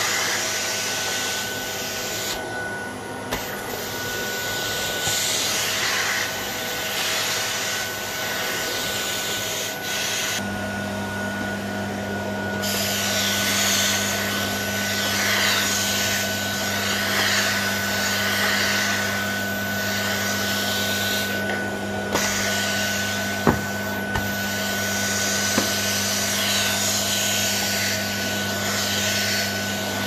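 AEG Öko Vampyr canister vacuum cleaner running steadily, a high motor whine over the rush of suction as the nozzle rubs across a carpet mat. A low hum joins about a third of the way in, and the suction hiss drops briefly a few times.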